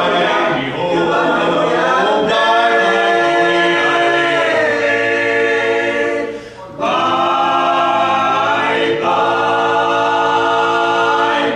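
Male barbershop quartet singing a cappella in four-part close harmony, holding long sustained chords, with a short break a little past halfway before a final held chord.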